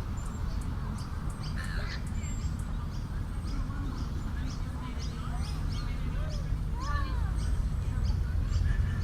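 Lakeside birds calling, with harsh cawing calls and a run of short high chirps, over a steady low rumble.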